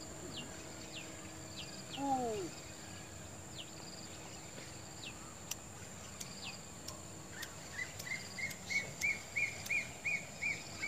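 Wild birds calling over a steady high insect drone: repeated short falling chirps, a louder falling call about two seconds in, and from about seven and a half seconds a quick run of repeated notes, about three a second.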